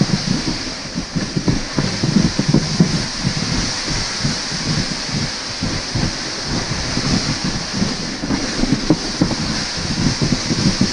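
Wind buffeting the microphone in irregular gusts, over a steady high hiss.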